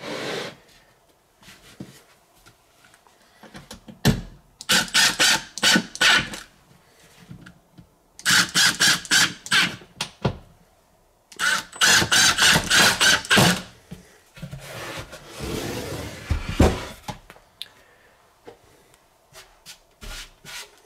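Cordless impact driver hammering screws into an MDF enclosure panel in three bursts of about two seconds each, with some scraping and handling of the box between and after them.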